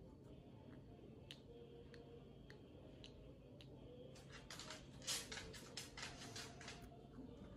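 Guinea pig chewing raw butternut squash. A few scattered soft clicks come first, then about three seconds of rapid crunching bites, about five a second.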